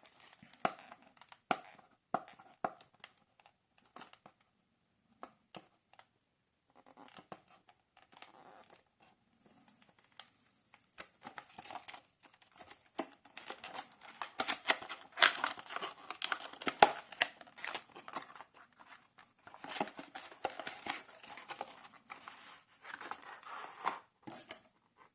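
A small product box being opened and unpacked by hand. Scattered clicks and taps come first, then from about eleven seconds in a long, busy stretch of rustling and handling of the cardboard and plastic packaging, which stops just before the end.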